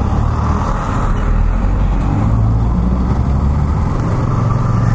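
Yamaha XTZ 150 motorcycle's single-cylinder four-stroke engine running steadily while the bike is ridden.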